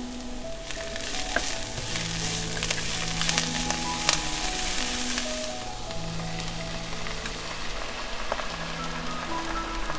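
Food frying in a pan in hot oil, a steady sizzle with crackles and a few sharp ticks, over soft background music.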